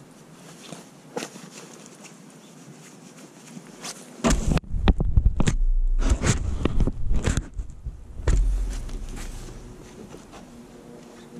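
Faint hiss, then about four seconds of loud low rumbling and knocks on a handlebar-mounted camera's microphone, with the motorcycle's engine not running.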